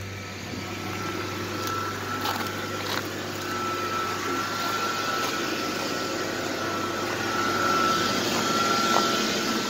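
Ford E450 bus engine idling steadily at a fast idle just after a cold start in freezing weather, with a thin steady high whine over the engine noise.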